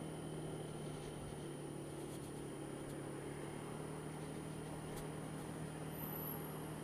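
Honda Dio scooter's engine running steadily while riding, with road and wind noise on the helmet-mounted microphone. A faint click about five seconds in.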